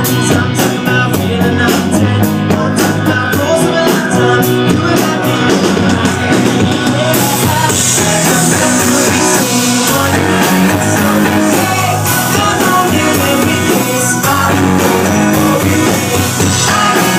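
Pop-rock band playing live, with drums, electric guitar and bass, and a cymbal wash from about eight to ten seconds in.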